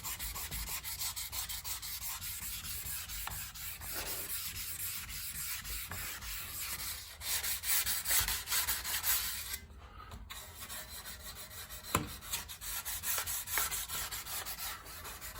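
1000-grit wet sandpaper rubbed back and forth over a coated part in quick, steady strokes, smoothing it for primer. The strokes stop briefly about two-thirds of the way through, then resume.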